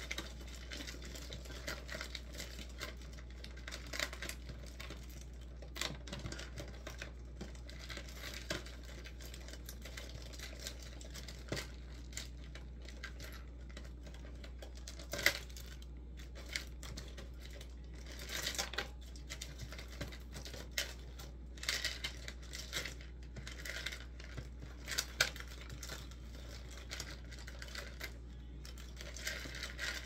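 Paintbrush scratching and dabbing acrylic paint onto canvas in short, irregular strokes, over a steady low hum.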